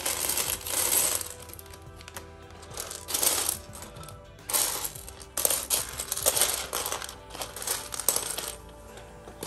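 Loose LEGO bricks clattering onto a tray as they are poured from a bag, then rattling in repeated bursts as hands spread and sift through the pile.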